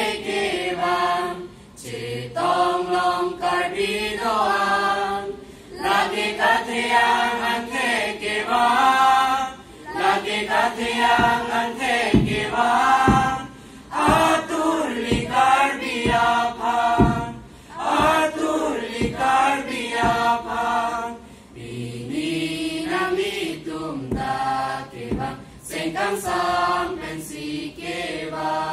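Mixed choir of boys and girls singing together into stage microphones, in short phrases with brief pauses for breath between them.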